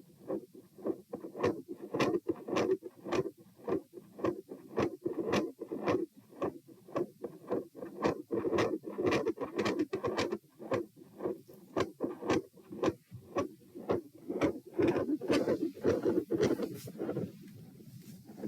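Heart sounds heard at the chest: a steady train of heartbeats with a continuous, machinery-like murmur filling the gaps between them, which the uploader likens to a patent ductus arteriosus (PDA) murmur with a phasic, split second heart sound. The beats weaken and fade near the end.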